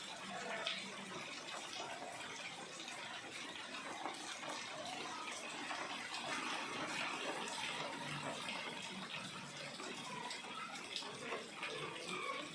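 Steady rain falling, an even hiss of water dotted with many small drop ticks.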